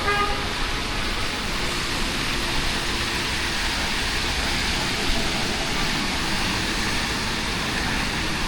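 Steady hiss of heavy rain mixed with road traffic, with a brief pitched tone right at the start.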